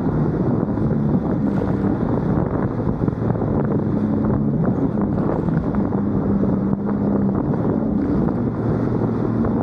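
Sea-Doo personal watercraft running fast over choppy water: a steady engine and jet-pump drone whose pitch shifts a little with throttle, under the rushing hiss of spray and hull slap, with wind buffeting the microphone.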